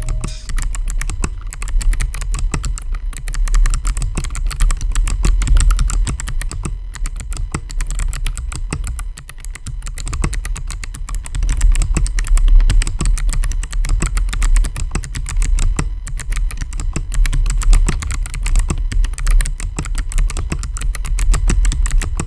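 Continuous typing on a mechanical keyboard with Kailh Box Jade clicky switches: a fast, dense stream of sharp, crisp clicks made by the switches' click bars, really loud.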